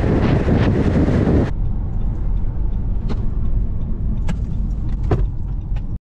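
A car driving, heard from inside the cabin: loud road and wind noise at highway speed, which cuts off about a second and a half in to a quieter low rumble of the car moving slowly, with a few faint clicks.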